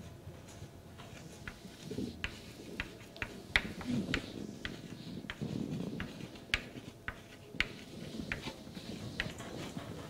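Chalk writing on a blackboard: irregular sharp taps and short scratches as the letters are written.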